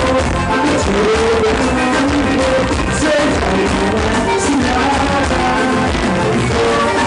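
A band playing loud music with singing and a steady beat.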